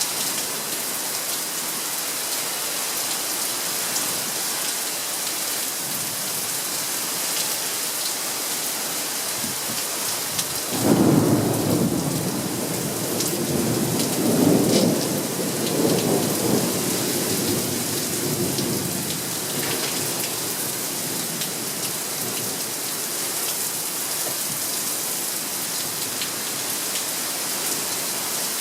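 Steady rain falling, with a sudden clap of thunder about eleven seconds in that rumbles on, swelling twice more, for some eight seconds before fading back under the rain.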